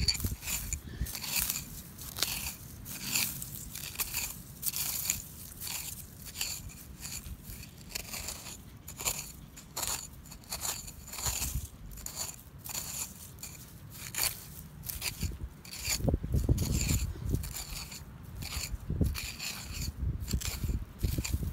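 Screwdriver digging and scraping into dry, gravelly soil to pry out weed roots: a quick run of short crunching scrapes, a couple each second.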